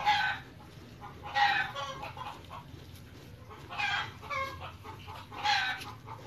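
Short animal calls, about six of them, each a brief pitched squawk or squeak, coming a second or two apart.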